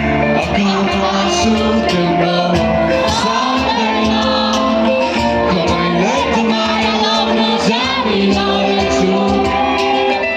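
Live band music with a singer, loud and steady throughout.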